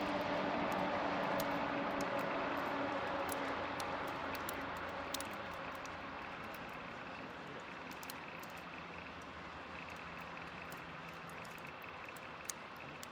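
Wood fire crackling with frequent sharp pops, under a passing engine drone that falls slightly in pitch and fades out over the first few seconds.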